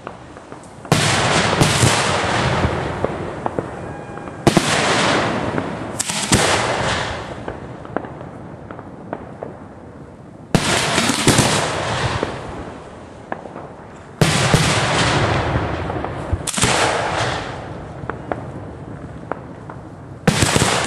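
Aerial fireworks shells firing from mortar racks: about eight sudden loud booms a few seconds apart, two of them close together at the start, each trailing off over a second or two into crackle.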